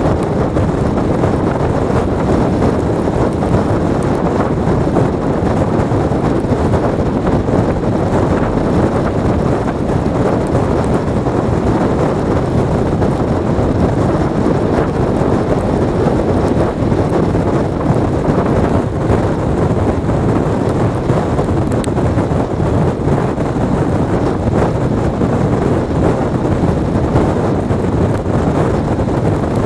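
Strong blizzard wind blasting against the microphone: a loud, steady rush of noise.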